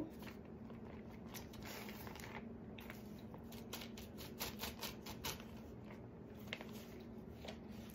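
Faint rustling and ticking of a glossy magazine page being handled and tipped so that loose embossing powder slides off it onto paper below, with a quick run of crackles about three seconds in. A faint steady hum lies underneath.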